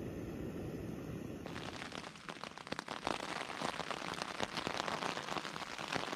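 Jetboil gas stove burner running with a steady low rush for the first second and a half. It then gives way to rain falling, a dense run of quick drop hits that grows louder about three seconds in.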